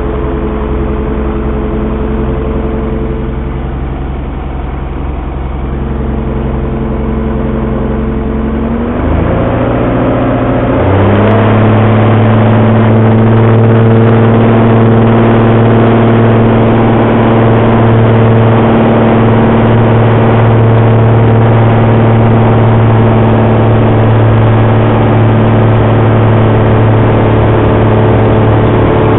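Velocity canard airplane's piston engine and pusher propeller running at low power, then about nine seconds in throttling up with a rising pitch to a louder, steady full-power drone, as for the takeoff run.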